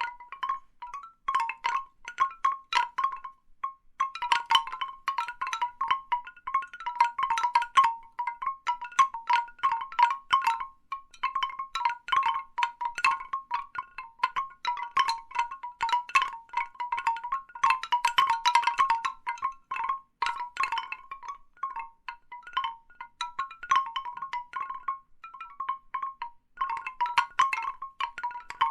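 Large bamboo wind chimes clacking irregularly: a steady flurry of woody knocks, each ringing briefly at much the same pitch. The knocks bunch up in busier spells and thin out in short lulls.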